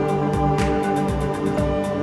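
Background music with held tones and a steady beat.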